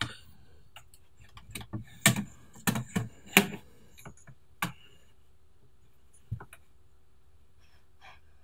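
Wooden clicks and knocks as a rigid heddle loom's heddle and a wooden pickup stick are shifted against the warp and loom frame: a sharp click at the start, a quick run of clacks about two to three and a half seconds in, then two single knocks.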